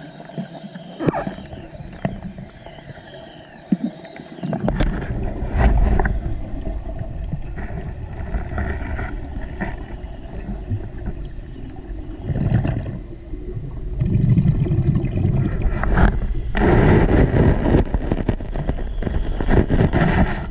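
Scuba diver's breathing heard underwater: a few sharp clicks at first, then, from about four seconds in, long stretches of rumbling, gurgling exhaust bubbles from the regulator, loudest near the end.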